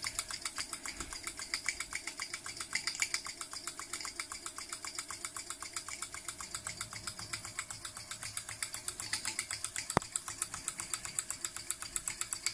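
Mamod Centurion TE1313C toy steam traction engine's double-acting cylinder chuffing in a fast, even rhythm while it drives a belted generator, working hard under the generator's load. A single sharp click about ten seconds in.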